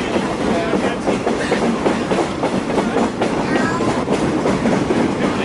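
Passenger train cars rolling along the track, heard from aboard: a steady rumble with wheels clicking over the rail joints.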